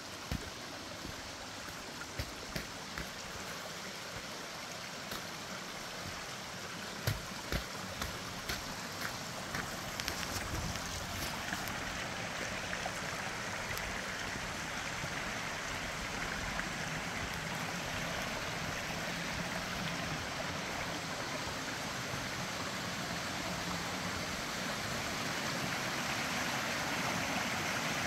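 Rushing creek water, growing steadily louder, with scattered sharp ticks and knocks during the first ten seconds or so.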